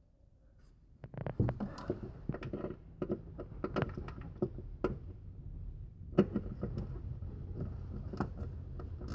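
Irregular metallic clicks and knocks of hand tools working on the bolts that hold the throttle cable to the firewall, starting about a second in over a low rumble.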